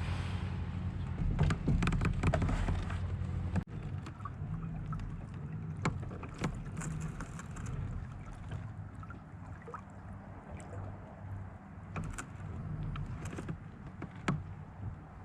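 Sounds from a fishing kayak on the water: a steady low wind rumble on the microphone with scattered knocks and clicks.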